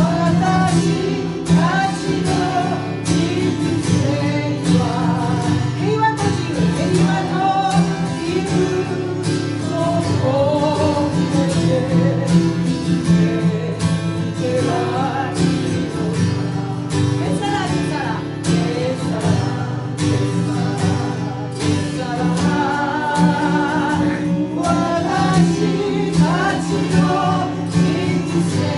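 Live acoustic music: an acoustic guitar and an autoharp playing chords together, with a wavering melody line above them.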